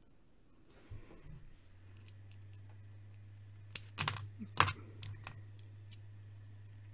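Small plastic building bricks clicking and snapping as they are pressed together and handled, with a quick cluster of sharp clicks about four seconds in. A low steady hum underneath.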